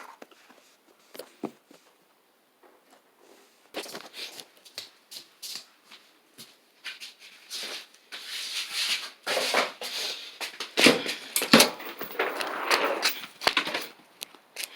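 Crunching and chewing of raw cucumber close to the microphone: a few faint clicks at first, then dense crisp crunches from about four seconds in.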